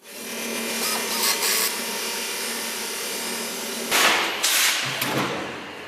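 Metal-cookware factory machinery running, a steady mechanical noise with a low hum, with two louder hissing surges about four seconds in.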